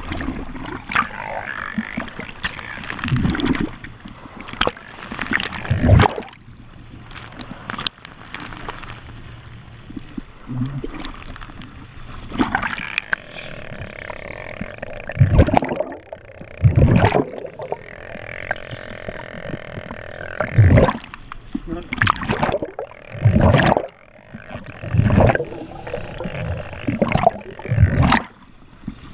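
Scuba diving sounds heard underwater: a diver's regulator breathing, the exhaled air bubbling out in repeated short gurgling bursts every second or two, mixed with water splashing and sloshing at the surface.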